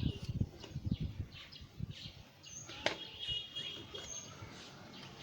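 Birds chirping and tweeting, over irregular soft knocks and rustles of handling; one sharp click just under three seconds in.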